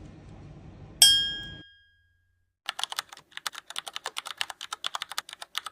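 A single bright ding about a second in, ringing out, then after a moment of silence a fast run of computer-keyboard typing clicks, about six to eight a second.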